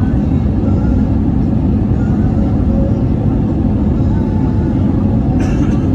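Cabin noise inside an Airbus A320neo: a loud, steady low rumble of engines and airframe. A brief sharper noise stands out near the end.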